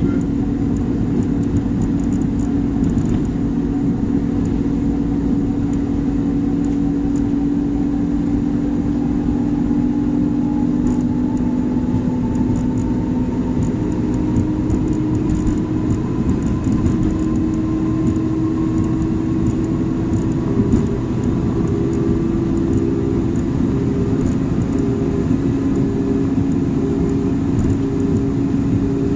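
Train running along the line, heard from the driver's cab: a steady engine drone with a whine that slowly rises in pitch through the middle as it picks up speed.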